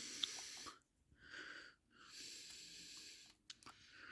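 Faint breathing close to the microphone: a run of soft breaths in and out with short pauses between them, and a light click or two.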